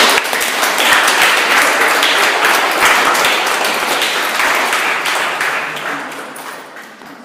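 Audience applauding: many hands clapping, loud at first and dying away gradually over the last two seconds or so.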